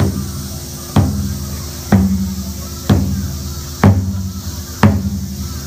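Taiko drum struck with bachi sticks in slow, even beats, about one a second, six strokes in all. Each stroke rings out with a low, booming tone that fades before the next.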